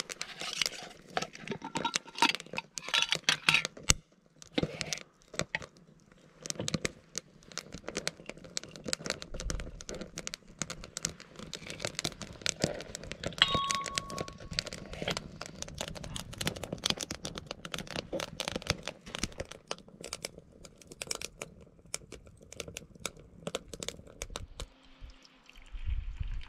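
Handling noise from a glass mason jar, its metal lid and a spoon: the lid unscrewed and set down, ground chaga spooned and tapped into a black metal press pot. Many small clicks, clinks and scrapes, with one brief ringing clink about halfway through.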